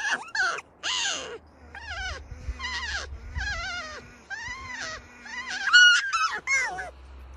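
A quick string of high-pitched, squeaky whining calls, each rising and falling in pitch, with the loudest squeal about six seconds in.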